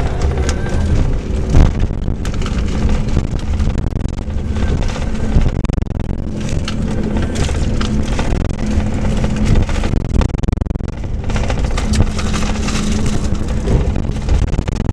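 Scania K410 coach on the move: a steady low engine drone with road noise and scattered knocks and rattles.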